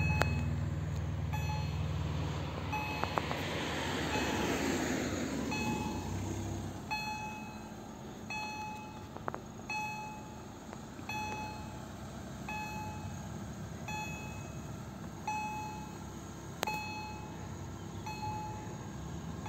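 Level-crossing warning bell from electronic EHL-S10 loudspeakers, ringing as a steady repeating ding of about three strokes every two seconds. A low rumble fades out under it over the first several seconds.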